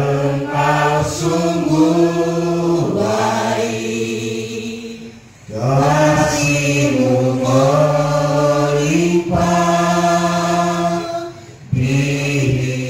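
Slow singing in long held phrases, breaking off briefly about five seconds in and again near the end.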